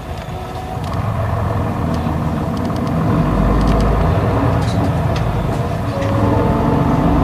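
Isuzu Erga city bus's inline-six diesel engine pulling away from a stop, heard from inside the cabin. The engine gets louder about a second in and again about three seconds in as the bus gathers speed.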